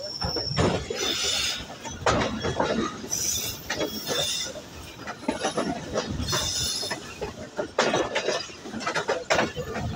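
Passenger train running along the line, heard from a coach window: irregular knocking and rattling of the wheels and coach over the track, with brief high-pitched metallic squeals now and then.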